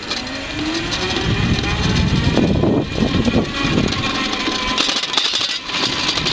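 The EQUAD 2000-watt electric transport's motor whines and rises in pitch as it pulls away and speeds up. Wind and tyre noise from the moving ride run under it.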